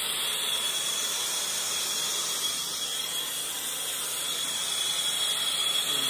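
Soldering torch flame burning with a steady hiss while it heats a copper fitting, sweating a solder joint so the fitting draws in the solder.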